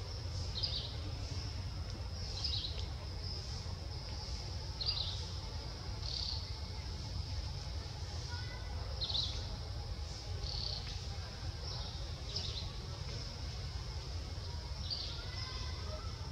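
Forest ambience: a steady high insect drone with short high chirps repeating every second or two, over a low rumble.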